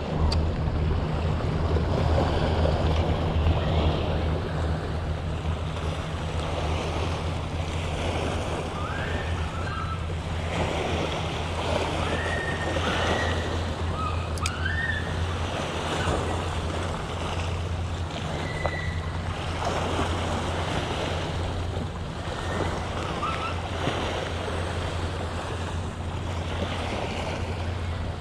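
Small waves lapping and washing onto a rocky seawall, swelling and ebbing every second or two, over a steady low rumble.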